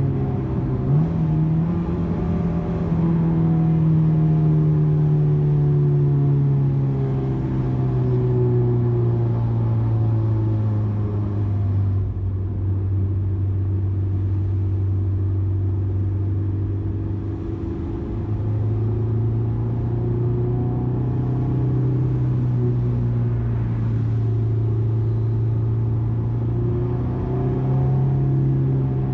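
Honda S2000's 2.0-litre F20C inline-four running under way, with its engine note sinking slowly over the first several seconds, holding steady in the middle, then climbing again and rising once more near the end as the revs pick back up. There is a brief dip and jump in pitch about a second in.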